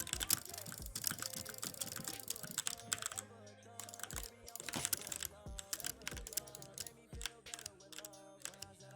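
Fast, irregular typing on an E-Element Z88 75% mechanical keyboard: a dense run of key clicks. Background music plays underneath.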